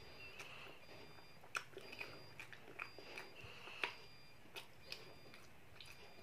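Quiet chewing with small mouth clicks and smacks while eating chicken satay, with scattered sharp clicks as satay skewers are pulled from the pile on the plate; the two loudest clicks come about a second and a half in and near four seconds in.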